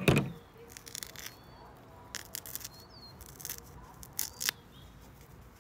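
Folding knife blade sawing into a white foam ear-post piece, several short scratchy cutting strokes in bursts, after a brief thump at the very start. Birds chirp faintly in the background.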